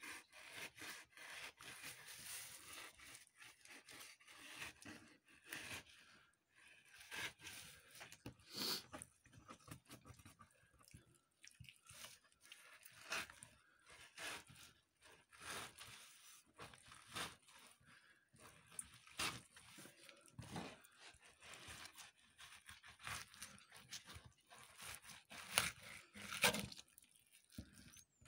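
Knife scraping and slicing along a sea bass fillet on a cutting board as the skin is cut away from the flesh: irregular short scrapes and crunching strokes, a few sharper ones near the end.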